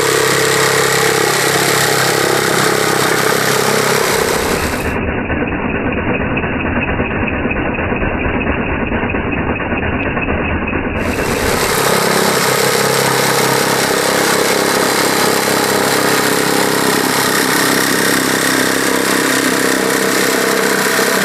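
Tichop TJS-18-B cordless brushless jigsaw running steadily while its blade saws through a wooden board. The orbital action is off (setting 0), so the blade strokes straight up and down, giving a clean but slower cut, and the blower is switched on.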